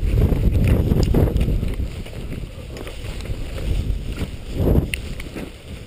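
Wind buffeting the microphone of a body-worn camera skiing fast downhill, with the swish of skis turning through deep powder snow. The rush is loudest in the first two seconds, then eases.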